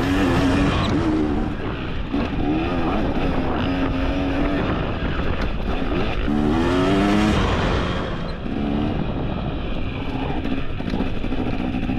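Dirt bike engine revving up and down as the bike is ridden along a tight single-track trail, its pitch climbing and falling again and again, with a sharp climb about two-thirds of the way through, over a steady rushing noise.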